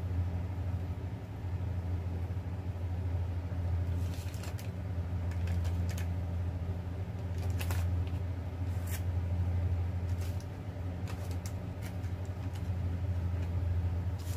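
A steady low mechanical hum, likely from a motor or kitchen appliance, with a few soft paper crinkles and taps as dough balls are set into a paper-lined baking pan.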